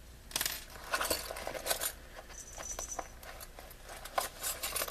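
Rummaging for a yarn needle among small hard items: a string of quick, irregular clicks, clinks and rattles.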